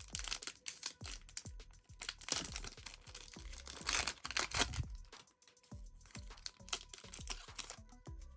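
A Panini NBA Hoops trading-card pack's wrapper crinkling and being torn open by hand, with irregular crackles and rustles, over background music.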